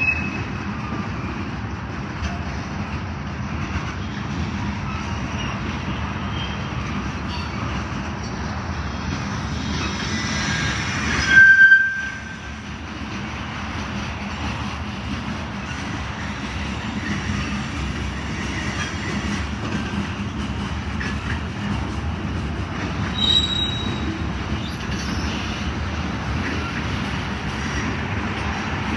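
Freight train cars rolling past with a steady rumble of wheels on rail. Short high wheel squeals come now and then, and a brief louder surge about eleven seconds in ends in a squeal.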